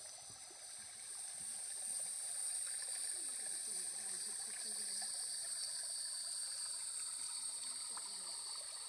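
Shallow rocky creek trickling and burbling steadily over stones.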